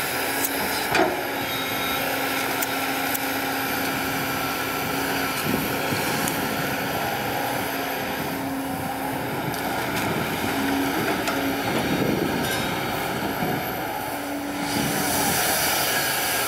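Kobelco SK200 hydraulic excavator working: its diesel engine runs steadily under load as the boom and bucket move soil, with a level hum that comes and goes and a few sharp clicks.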